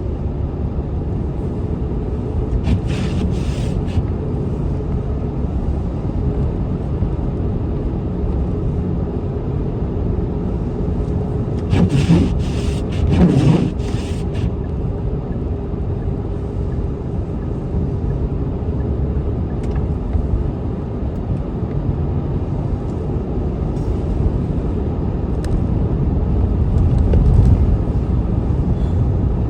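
Steady road and engine rumble inside a moving car's cabin, driving on a snowy road. A brief louder rush comes about twelve seconds in.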